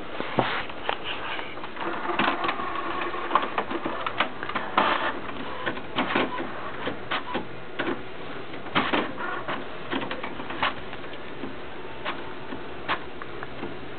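Inkjet printer printing a page: the cartridge carriage shuttling back and forth with short whirring passes and sharp clicks, busiest through the first two-thirds and thinning to scattered clicks near the end.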